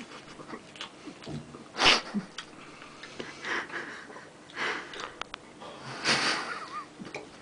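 A few sharp sniffs through the nose, the loudest about two seconds in, with small clicks between them.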